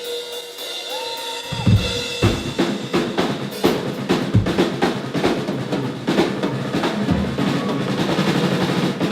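Rock drum kit playing a heavy beat: kick, snare and cymbals come in about one and a half seconds in, after a steady held tone, and keep going.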